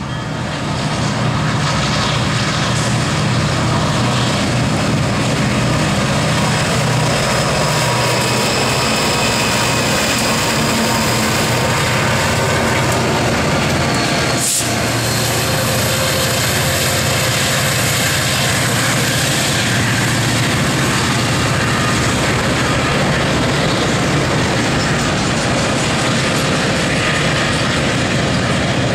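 Three EMD SD40-2 diesel-electric locomotives, each with a 16-cylinder two-stroke diesel, running past at speed with a loud, steady drone, followed by autorack freight cars rolling by on the rails.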